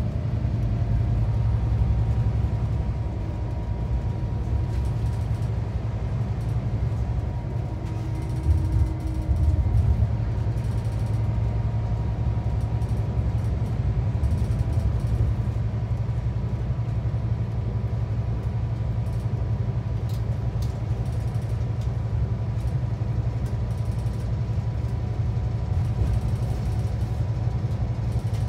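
Scania K360 coach's nine-litre five-cylinder diesel running, heard from inside the passenger cabin as a steady low drone, with a few louder knocks about eight to ten seconds in.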